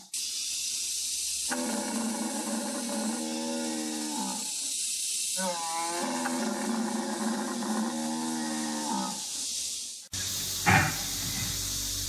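Animatronic hippo model's built-in call played through its speaker: two long, low, pitched calls of about three seconds each with a short pause between, each falling in pitch at its end, over a steady hiss. Near the end, a short loud burst comes from the next model, an animatronic tiger.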